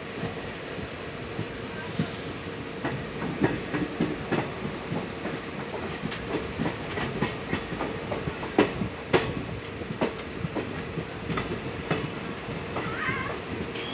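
Passenger train running, heard from on board: steady rolling rumble with irregular clicks and knocks of the wheels over rail joints, growing busier a couple of seconds in. Near the end a short wheel squeal begins.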